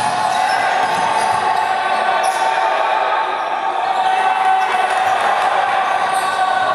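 Sounds of a basketball game in play: the ball bouncing and players moving on a hardwood court, echoing in a large hall, steady throughout.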